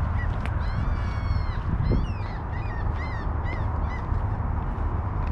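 A crow calling: one longer caw about a second in, then a quick run of about six short caws, over a steady low rumble.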